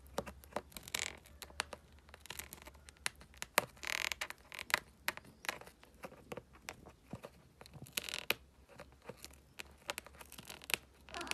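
A sleepy kitten's mouth smacking, close to the microphone: faint, irregular wet clicks with a few short breathy rustles.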